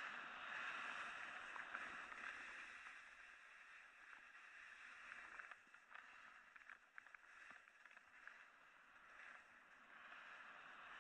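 Faint, steady hiss of a snowboard sliding and carving over snow, dipping quieter in the middle with a few small clicks scattered through it.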